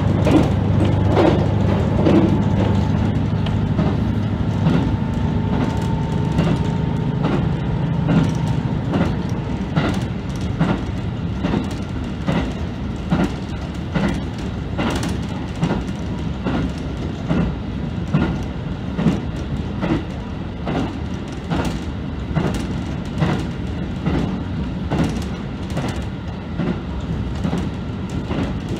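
KiHa 75 diesel railcar running at speed, heard from inside the lead car: a low engine drone for the first eight seconds or so, then a steady run of regular clickety-clack as the wheels pass over rail joints.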